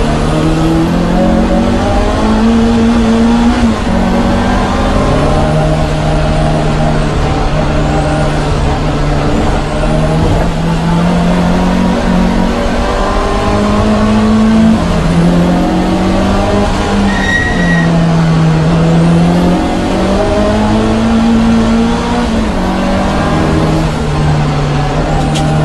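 Lancia Delta HF Integrale race car's turbocharged four-cylinder engine heard from inside the cabin, revving up and dropping back again and again through gear changes as it laps the circuit, with a faint high whine that rises with each pull. A short beep sounds about 17 seconds in.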